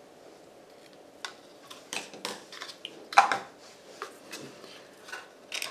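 Hands handling gift ribbon and a small embossed paper box on a craft mat: a scattered series of short rustles and light taps, the loudest a little past three seconds in.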